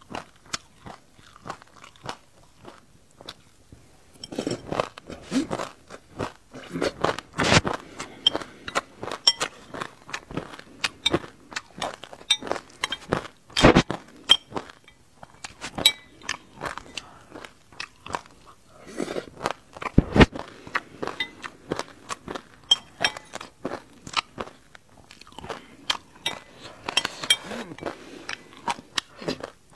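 Close-miked crunching and chewing of a mouthful of black and white sesame seeds mixed with passion fruit. It comes in spells of dense, crisp clicks with quieter pauses between, four or so times. A metal spoon now and then clinks against the glass bowl.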